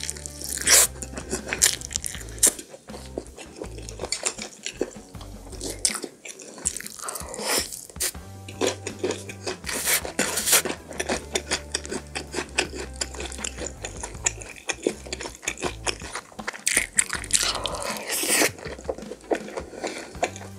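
Close-miked eating: biting into and chewing BBQ pork ribs, with many short crunchy, sticky mouth sounds and occasional clinks of a fork on the plate, over background music.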